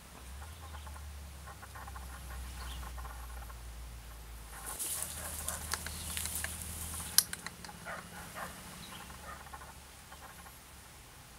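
Rustling and crackling of leaves and brush, busiest a few seconds in, with one sharp click about seven seconds in, over a low steady rumble.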